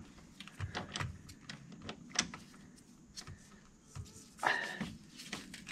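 Scattered light clicks and knocks of hand tools and metal parts being handled on a van, with a short scrape about four and a half seconds in.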